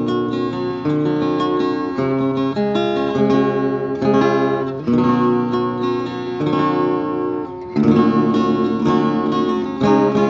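Background music played on acoustic guitar, strummed chords with picked notes, with a brief break about seven and a half seconds in.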